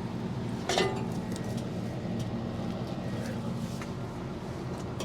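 A farm machine's engine running steadily at idle, giving a low even hum, with one brief sharp sound about a second in.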